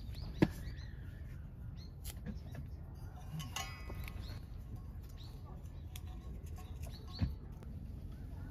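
Quiet tabletop handling over a low steady rumble: a sharp click about half a second in, then a knock about seven seconds in as the stainless steel kettle is lifted off the camp stove's grate. Small bird chirps sound now and then in the background.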